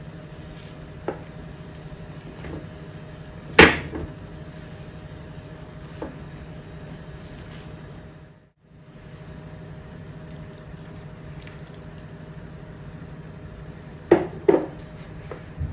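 Boiled potatoes being mashed and stirred in a nonstick saucepan with a plastic masher and spatula: soft squishing with scattered knocks of the tool against the pan, the loudest about three and a half seconds in and two more near the end, over a steady low hum.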